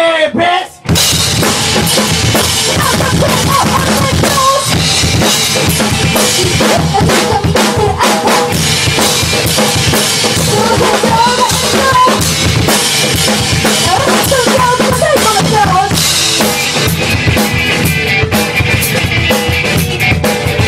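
Rock band playing loudly, the drum kit's bass drum and snare most prominent, with electric guitar. The music stops briefly at the start and the full band comes back in under a second later.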